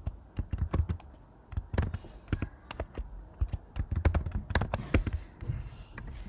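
Typing on a computer keyboard: quick runs of key clicks with short pauses between them, as a password is entered into three fields one after another.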